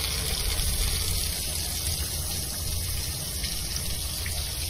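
Tap water running steadily in a stream, pouring onto a cat's wet fur.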